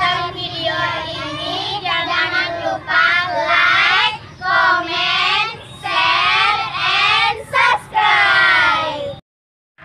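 A group of young girls singing together in unison, in short sung phrases with brief breaks, stopping abruptly near the end.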